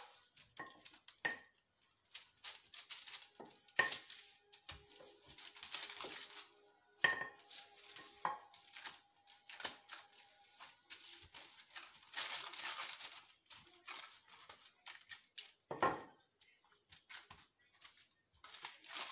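Wooden rolling pin rolling biscuit dough out under baking paper: repeated scraping and crinkling of the paper with each stroke, and a few sharp knocks of the pin and hands on the counter.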